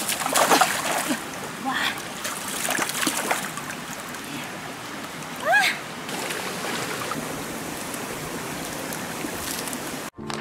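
Shallow stream running over stones, with water splashing as someone wades and works with their hands in it. A few short rising calls sound over it, the loudest about five and a half seconds in, and the sound cuts off just before the end.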